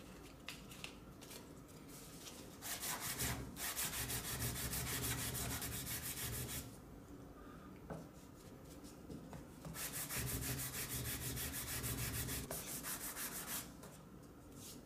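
Fine 240-grit sandpaper wrapped around a wooden block, rubbed back and forth along the grain over the flat face of a small octagonal wooden piece. Two bouts of quick strokes, the first starting about three seconds in and the second about ten seconds in.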